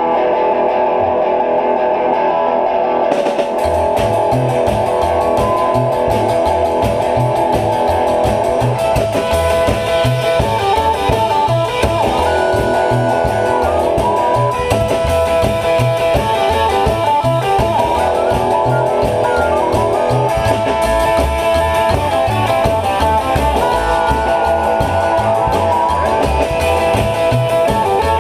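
Live blues band playing: held harmonica notes and guitar open the tune, then the upright double bass and drum kit come in about three seconds in with a steady beat, and the full band plays on.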